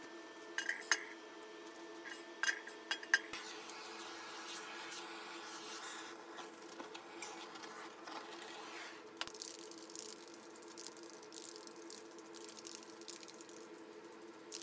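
Steel stove parts clinking and ringing against a steel workbench. Then a gas torch flame hisses steadily for several seconds, and after it comes a run of light clicks and rattles. A steady workshop hum runs underneath.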